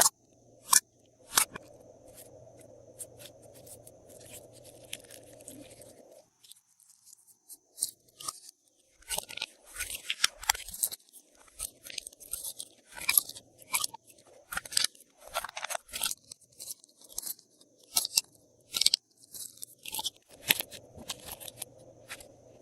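Glossy slime being squeezed and mixed by hand with add-ins, making sticky clicks and crackling pops. A few sharp clicks come right at the start; the crackling then thickens into dense runs through the second half.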